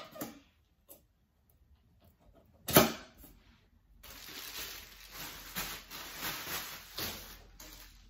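Pieces of a collapsible metal table frame being handled and fitted together: one loud sharp knock about three seconds in, then continuous rubbing and handling noise of the parts.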